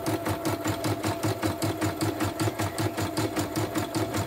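Portable computerised embroidery machine stitching a design: the needle strokes come in a rapid, even rhythm over the hum of its motor. The machine is on a test run after being repaired for its embroidery shifting out of place.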